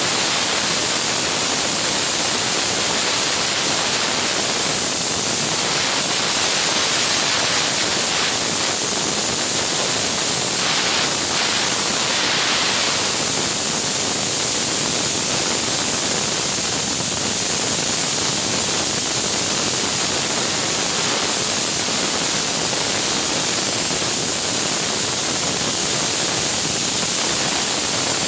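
Steam cleaner's nozzle jetting hot steam: a loud, steady, high hiss.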